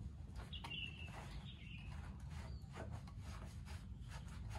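Soft rubbing and scattered light taps over a steady low rumble, with a short high falling chirp about half a second in.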